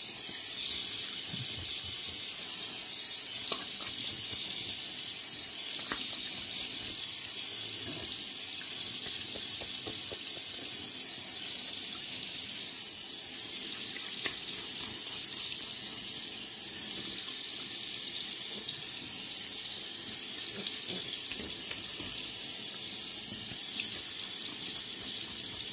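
Bathroom sink tap running steadily into the basin as the face is wetted before a shave, with a few faint ticks and splashes.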